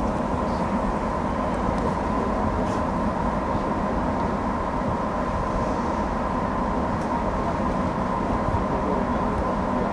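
Steady hum of a stationary 205 series electric train's onboard equipment, heard from the driver's cab, with a constant high-pitched whine over it. The train stands idle at the platform waiting for an oncoming train to pass.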